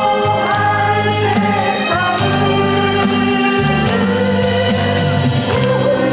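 A woman singing a song live over band accompaniment, her held vocal lines over a steady bass line.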